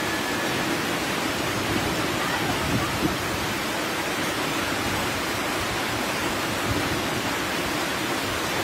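Steady rushing of muddy floodwater pouring down a street, an even wash of water noise with no breaks.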